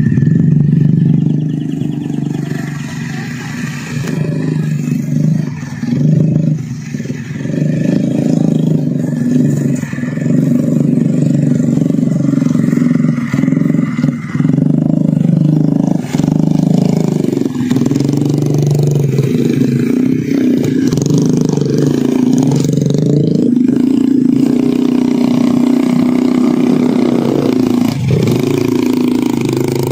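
Several small trail motorcycles' engines revving, the pitch rising and falling again and again, as the bikes struggle through mud loaded with sacks of grain.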